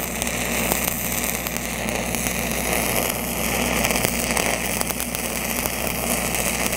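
Stick-welding arc from a 5/32-inch (4 mm) E7010 Pipeliner 7P+ cellulosic rod at about 150 amps, running a downhill hot pass on pipe: a steady crackling hiss full of small sharp pops. A steady engine drone sounds underneath.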